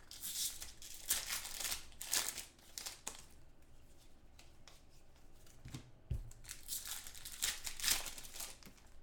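Trading-card pack wrappers crinkling and tearing open as packs are unwrapped and the cards handled, in two spells of rustling with a couple of soft knocks in between.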